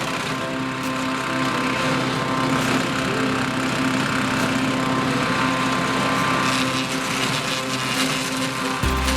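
Wood chipper's small gasoline engine running steadily at a constant speed.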